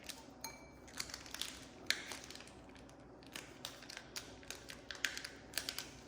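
Scattered light clicks and taps of kitchen containers and utensils being handled, irregular and quiet, over faint room tone.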